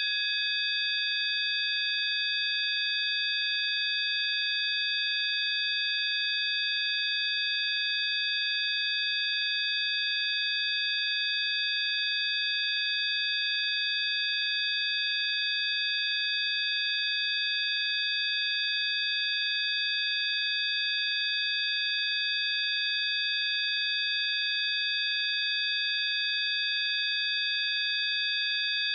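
Several steady, high-pitched sine tones sounding together without any change: a synthesized 'healing frequency' tone.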